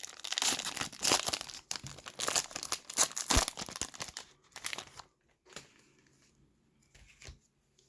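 Plastic wrapper of a Panini Prestige basketball card pack being torn open and crinkled, then a few faint taps and rustles from handling the cards about five seconds in.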